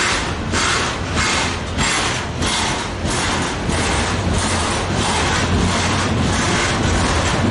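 Freight train of container flatcars rolling past close by: a steady rumble of wheels on rail with a rhythmic pulsing hiss, about three pulses a second, that weakens over the last few seconds.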